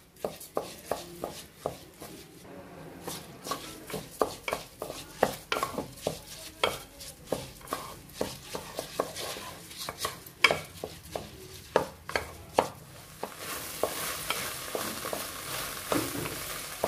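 Spatula stirring and scraping soaked rice and fenugreek leaves in a metal pressure cooker, knocking against the pot about two or three times a second, while the rice is fried dry of its moisture. A steady sizzle comes up near the end.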